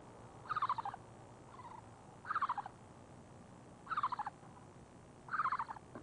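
An owl calling: four short, quick trilled calls, each falling in pitch, about one every one and a half seconds, with a fainter call between the first two.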